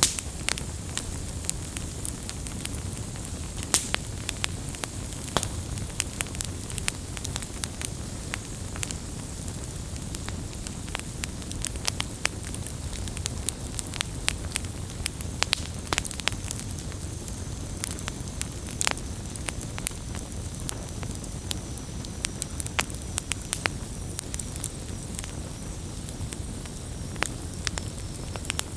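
Wood campfire burning, with irregular sharp crackles and pops over a steady low rumble and hiss of the flames.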